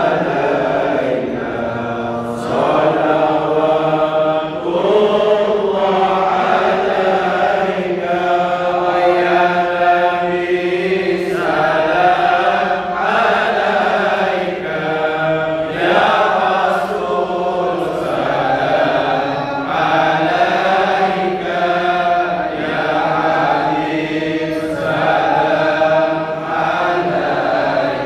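A group of men chanting dikir (Islamic devotional chant) in unison into handheld microphones. They sing long, held, wavering notes in phrases, with short breaks between them.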